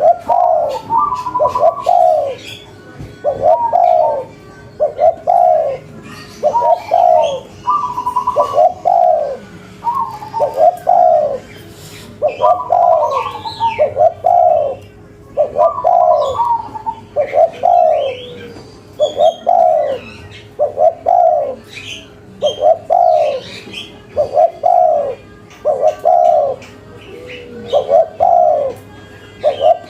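Spotted dove (tekukur) cooing without a break, one coo phrase after another. Short chirps from small birds sound higher up, and a faint steady hum runs underneath.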